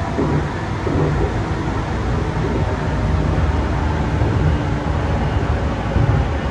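Tokyu 8500 series electric train running along the line, a steady loud rumble of wheels on rail and running gear with a faint steady whine underneath.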